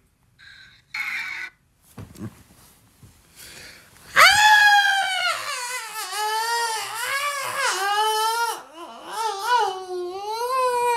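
High-pitched wailing cry, starting about four seconds in and held for several seconds, wavering up and down as it slowly falls in pitch. A short noise comes about a second in.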